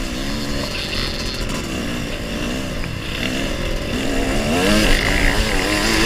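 Dirt bike engines revving hard in a hare scramble, the rider's own bike and others close by, the revs rising and falling with the throttle and climbing higher and louder in the second half. Heard from a helmet-mounted camera.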